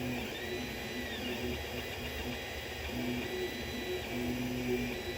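Creality CR-10 3D printer running a print, its stepper motors whining in short tones that start and stop with each move, some gliding up and back down in pitch, over a steady fan hiss.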